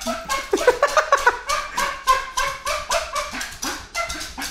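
Small dog spinning in circles on a tiled floor: quick clicking and scrabbling of its claws on the tiles, mixed with short high whines and yips.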